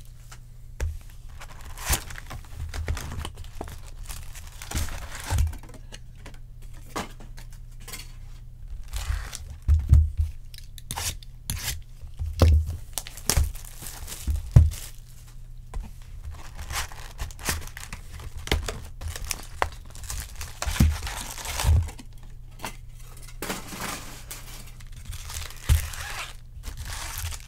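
2020 Topps Chrome trading card pack wrappers and plastic wrap being torn open and crinkled by hand, with the cards handled and shuffled. Irregular knocks and rustling come throughout, over a low steady hum.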